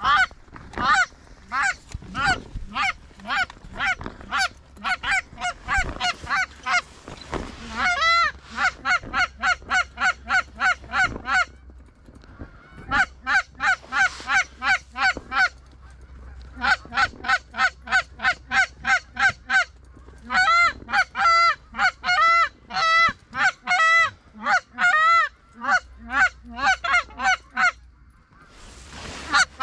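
Canada goose honks and clucks in quick, evenly spaced runs of about three to four calls a second, coming in several bursts with short pauses between them and dying away near the end.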